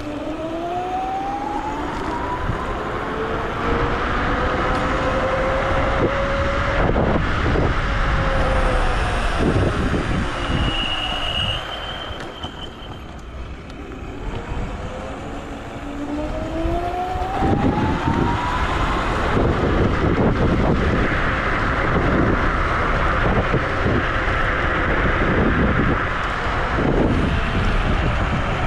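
Wolf Warrior dual-motor electric scooter's motors whining as it rides, the pitch rising as it speeds up, falling away through a quieter stretch in the middle, then rising again. Heavy wind and road rumble run underneath, with a few knocks from bumps.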